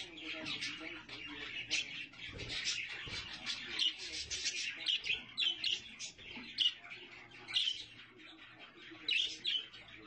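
Budgerigars chirping: many short, high chirps in quick succession, thinning out about eight seconds in and picking up again near the end.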